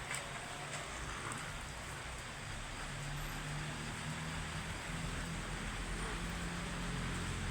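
Steady rain hiss with a few faint drop taps, and a low steady hum underneath that grows a little stronger a few seconds in, like a vehicle engine.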